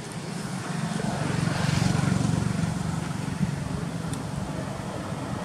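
Low hum of a distant engine, swelling about two seconds in and then easing off, as a vehicle or aircraft passes.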